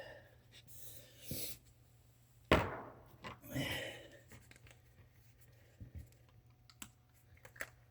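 Small handling noises as the snowblower's oil check plug is pulled out and wiped: a sharp knock about two and a half seconds in, a short rustle just after, then scattered light clicks.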